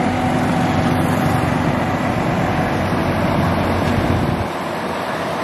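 Heavy truck engine running close by amid road traffic noise, a steady low rumble with a faint steady hum over it that drops away about four and a half seconds in.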